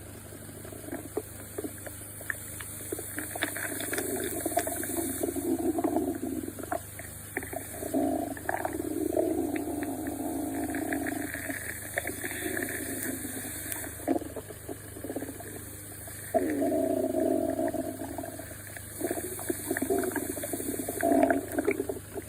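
Hungry stomach growling: long gurgling rumbles that come in several waves with short lulls between them.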